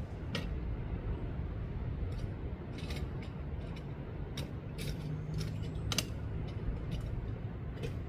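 Scattered short clicks and taps of small objects being handled, over a steady low rumble.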